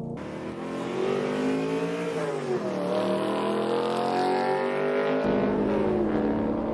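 BMW E92 M3's 4.0-litre V8 pulling hard on track. The pitch climbs, dips briefly about two and a half seconds in, climbs again, then falls near the end as the revs come down.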